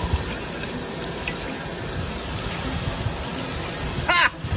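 Crankshaft grinding machine running with its coolant splashing steadily over the turning Volvo Penta 8.1 crankshaft, a continuous watery hiss. A brief, louder sound with a rising pitch cuts in near the end.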